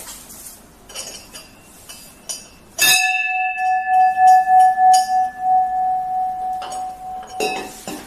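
4 kg brass temple bell (ghanta) lifted with a few light clinks, then struck by its clapper about three seconds in. It rings with one clear tone that pulses as it sustains, while its higher overtones fade first. The ring is stopped with a knock shortly before the end. The long resonance is what the seller takes as the sign of pure brass with no iron mixed in.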